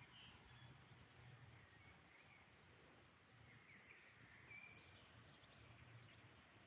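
Near silence with faint, scattered bird chirps, a few a little clearer about four seconds in.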